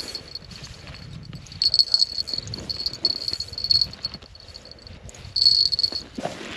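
Back-reeling ice-fishing reel whirring with a high, steady buzz in three stretches while a hooked trout is played: about a second, then about two and a half seconds, then a short half-second burst.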